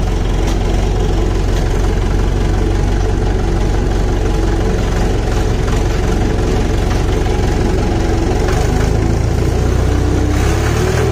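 Hindustan 80 tractor's diesel engine running steadily at a low idle, with a knocking rumble; the low note shifts slightly near the end.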